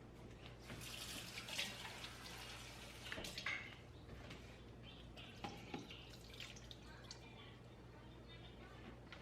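Water running briefly from a kitchen tap, followed by a few small clicks and knocks.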